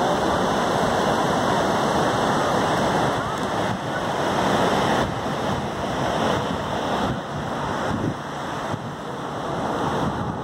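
Steady rushing of surf breaking on the beach, with wind buffeting the microphone; it dips slightly about eight seconds in.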